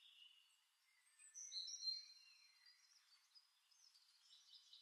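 Near silence, with a few faint high-pitched chirps about a second and a half in.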